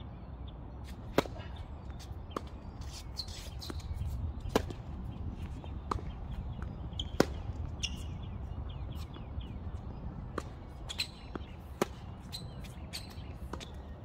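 Tennis balls struck by rackets and bouncing on a hard court during a baseline rally: a run of sharp pops about a second apart, the closest strikes the loudest.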